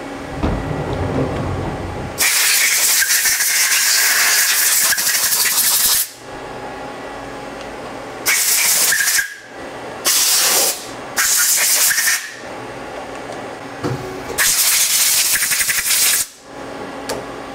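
Compressed-air blow gun hissing in five blasts, the first and longest about four seconds, blowing off a freshly machined part in a CNC lathe chuck. A low rumble comes before it in the first two seconds.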